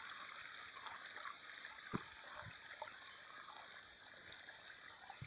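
Water of a small forest creek running over its bed: a steady trickling, gurgling rush with a few faint clicks. The creek is running strongly after recent rain.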